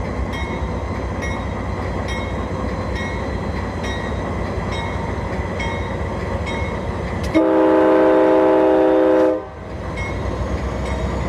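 CSX freight train rolling past with a steady rumble. About seven seconds in, a locomotive air horn sounds one chord of several tones for about two seconds.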